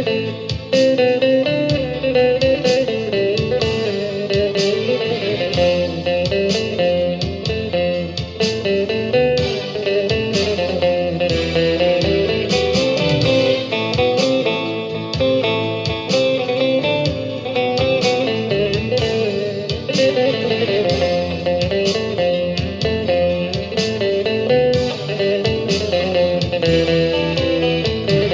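Guitar music with plucked notes over a steady accompaniment, no words.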